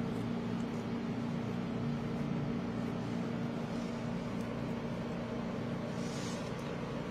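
A steady low mechanical hum holding one pitch, like a room appliance or motor running. Near the end come a few faint soft scrapes of a spatula spreading the soft white coating over the cake.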